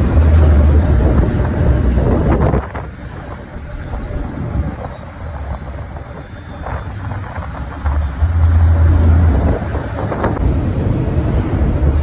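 Chicken bus on the move, heard from inside by an open window: engine and road noise with a heavy low rumble, loud for the first two and a half seconds, dropping for a while, then loud again about eight seconds in.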